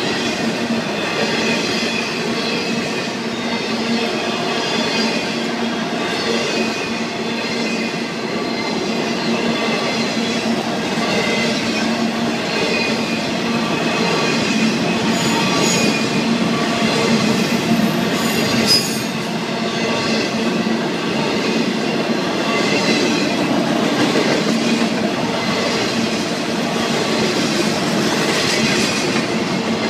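Double-stack intermodal container cars of a Florida East Coast Railway freight train rolling past, a steady rumble of steel wheels on rail with steady high tones over it and a single sharp clank about 19 seconds in.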